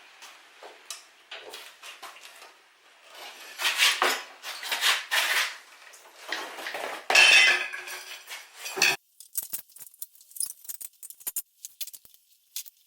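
Small metal parts and hand tools clinking, rattling and scraping as they are handled, in irregular bursts that are loudest in the middle. A brief gap about nine seconds in is followed by light scattered clicks.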